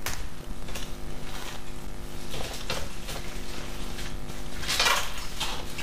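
Plastic cling film crinkling and rustling in the hands as it is twisted and pressed tight around a soft roll of warm dough-like mixture, in short irregular bursts with the loudest a little before the end. A low steady hum runs underneath.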